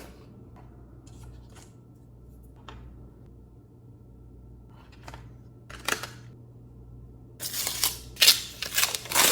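Hands handling a tablet's retail packaging: a few light taps and clicks, a short sharp scrape about six seconds in, then loud rustling and scraping of the packaging near the end as it is opened.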